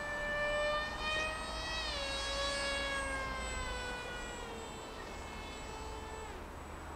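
The electric motor and propeller of a Z84 flying wing, whining overhead. The pitch drops about two seconds in and slides lower, then dips again near the end.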